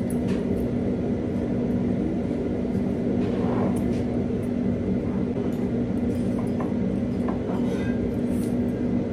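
A steady low droning hum fills the room, with a few faint clinks of metal chopsticks on a ceramic bowl and soft slurps as noodles are eaten.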